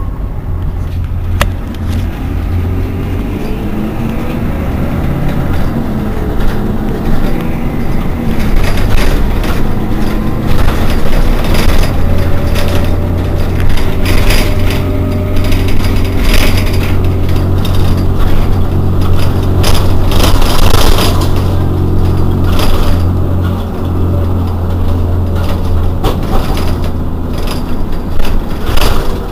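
Irisbus Citelis 12 city bus engine idling at a stop: a steady low drone, with a few short hisses and clicks in the middle.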